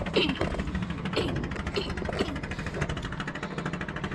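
Small wooden boat's engine running steadily with the boat under way, a low, even rumble. A few short falling sounds come over it in the first couple of seconds.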